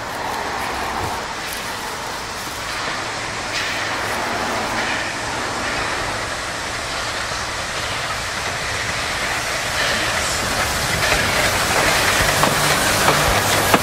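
South Maitland Railway 10 class 2-8-2T steam tank locomotive hauling passenger carriages as it approaches. Its running sound grows louder about ten seconds in, and the wheels click over the rail joints near the end.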